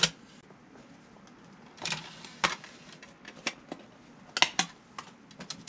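Irregular clicks and knocks of parts being handled and fitted as the disc loader of a Rotel RDV-1060 CD/DVD player is put back on its chassis by hand. The loudest clicks come about halfway through and again a little later as a close pair.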